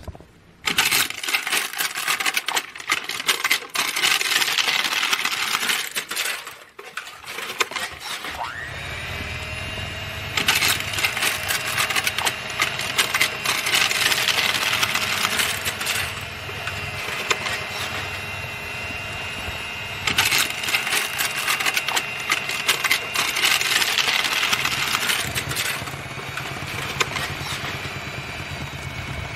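Hand-held electric mixer in a glass bowl of butter and sugar. For the first few seconds its metal beaters clink and scrape against the glass. About eight seconds in the motor starts on low and runs steadily with a whine, the beaters rattling against the bowl as they cream the butter and sugar.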